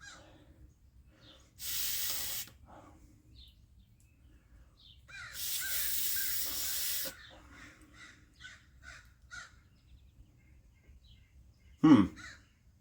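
Two bursts of pressurised hiss, the first about a second long and the second about two seconds, blown through a plastic Briggs & Stratton mower carburetor's jet assembly, which looks clogged. After the second burst come a run of short, faint caw-like calls and light clicks.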